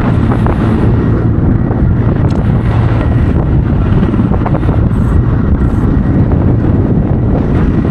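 Sky crane firefighting helicopter flying close, its heavy rotor noise loud and steady, with rotor-wash wind buffeting the microphone.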